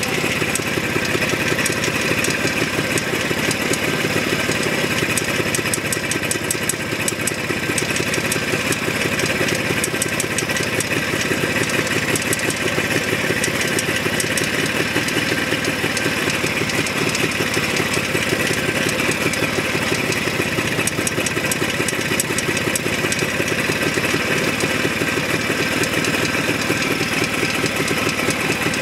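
Jawa 634 350cc two-stroke twin engine idling steadily with a knock. The knock goes away when riding and is unchanged with a spark plug removed, and the owner wonders whether it is the primary chain.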